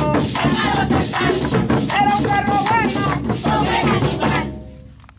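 Live group music: a voice singing over hand clapping and rattling, drumming percussion, fading out over the last second.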